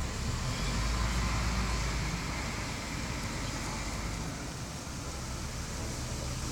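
A heavy vehicle engine running with a low rumble, stronger in the first few seconds and easing off slightly about four seconds in.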